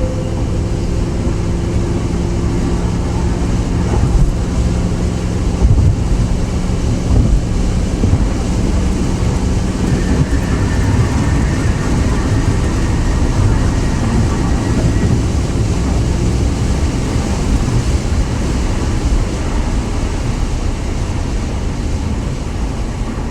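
Ford Crown Victoria's V8 engine and exhaust running while driving: a steady, deep rumble mixed with road noise. The throaty note comes from a hole in the left rear exhaust, which the owner says makes it sound deep.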